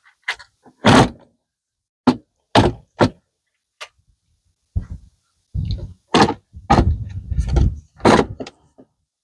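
Wooden stake-bed side panels knocking and clunking as they are seated onto a golf cart's rear bed and their hinges lined up: a string of sharp, irregular knocks that come closer together in the second half.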